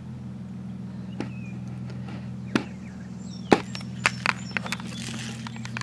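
A steady low hum runs throughout, with scattered sharp clicks and knocks; the loudest knock comes about three and a half seconds in. A few faint bird chirps are heard near the middle.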